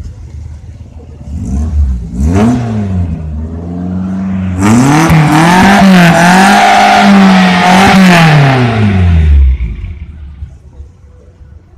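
Suzuki Katana's small petrol engine revved while the vehicle stands still: a short blip about two seconds in, then held at high revs for about five seconds before it drops back to idle.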